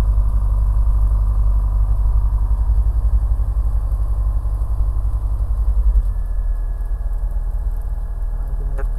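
Single-engine light aircraft's piston engine and propeller running steadily at low taxi power, heard from the cockpit as the plane lines up on the runway. The engine sound eases a little about six seconds in.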